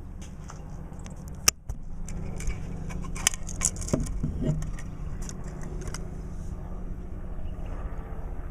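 Handling noise: small clicks and rustles from a camera being moved in close, with one sharp click about a second and a half in, over a steady low hum.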